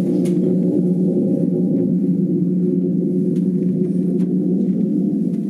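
A sustained low droning tone made of several held pitches, steady and even in level throughout.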